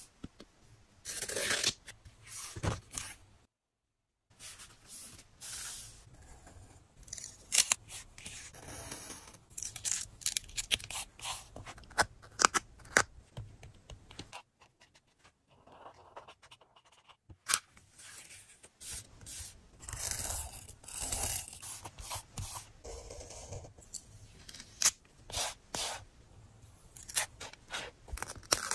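Paper-craft sounds of journal decorating: scissors cutting paper, with tearing, rustling and scattered sharp taps coming in irregular bursts.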